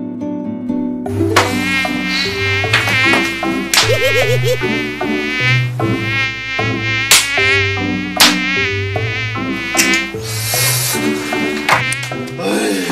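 Mosquitoes whining with a high, wavering buzz that comes in about a second in and keeps circling close by, as if around a sleeper's head.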